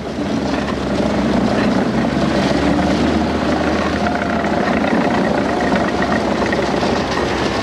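Tracked over-snow vehicle driving across sea ice, its engine running steadily.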